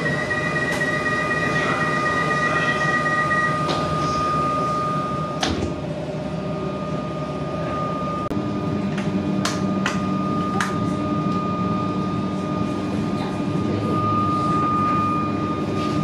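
Metro suburban train carriage: the door-closing warning beeps sound for about four seconds and the sliding doors shut. A steady whine runs throughout, with a few sharp clicks, and about halfway a low steady hum comes in.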